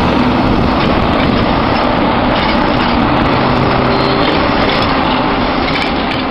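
Commuter train running on the tracks: a loud, steady rumbling noise with a faint low hum.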